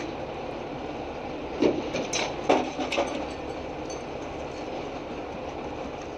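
A heavy tow truck runs steadily as its winch pulls an overturned box truck upright. A few sharp knocks and clanks come between about one and a half and three seconds in.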